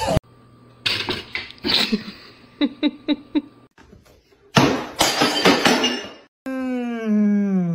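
A dog's long howl-like whine, falling steadily in pitch, near the end. Before it come a loud clattering crash about halfway and a few short, sharp sounds in quick succession.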